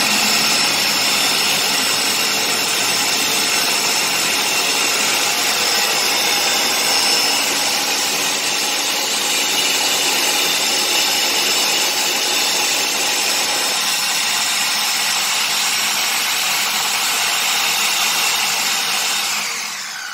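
Ninja 1000-watt countertop blender running at full speed, blending a full jug of thick liquid, with a steady high motor whine. Near the end it is switched off and the whine falls away as the motor winds down.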